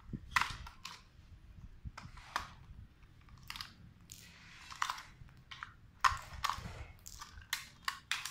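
Irregular plastic clicks, scrapes and rattles of a toy RC car being handled: its battery cover taken off and the AA batteries in it worked loose.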